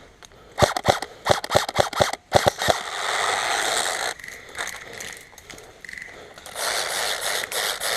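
Airsoft gun firing a quick, irregular string of about a dozen sharp cracks over two seconds, followed by a steady rushing noise.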